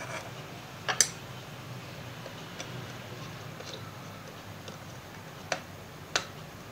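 A few small sharp clicks and taps from wire ends being pushed into the screw-terminal input connector of an amplifier circuit board: two close together about a second in, two more near the end, over a faint steady low hum.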